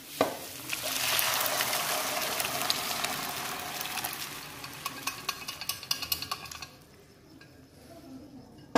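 Boiled dal poured from an aluminium pressure cooker into hot oil and frying vegetables in a kadai, setting off a loud sizzle that slowly fades into scattered crackling and dies away near the end. A short knock of the pot comes just before the pour.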